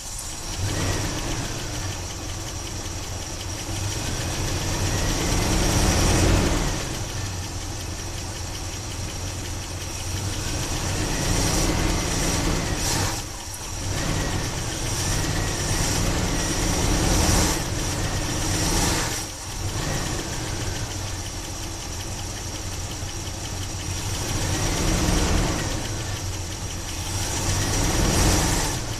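Carbureted engine of a 1976 Chevy Blazer running, its throttle worked by hand at the carburetor so that it revs up and settles back several times. The owner finds that the carburetor drips fuel when the throttle is opened, flooding the engine.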